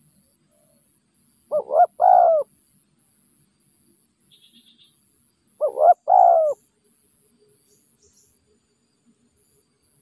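Spotted dove cooing twice, about four seconds apart; each call is a short note followed by a longer coo.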